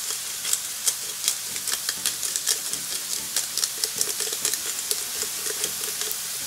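Sliced bell peppers, onion, tomato and thyme sizzling in a little oil and butter in a frying pan, a steady hiss with frequent sharp crackles and pops.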